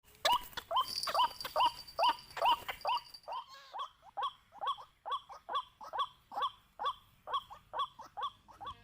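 White-breasted waterhen calling: a long, even series of short, upward-sliding 'kwak' notes, about two a second. A thin, steady high tone runs under the first few seconds.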